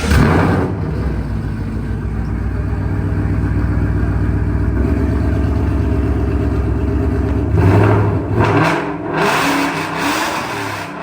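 Muscle car with an aftermarket exhaust idling with a deep, steady rumble. It is blipped once at the start and revved several times from about three quarters of the way through.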